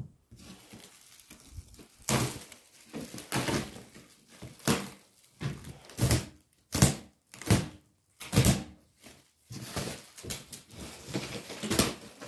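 Plastic stretch wrap being cut and pulled off a cardboard shipping box, crackling and tearing in a string of irregular bursts.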